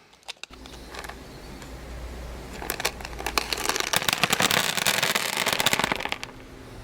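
Rustling, crackling handling noise over a low rumble, with a dense run of sharp clicks through the middle few seconds.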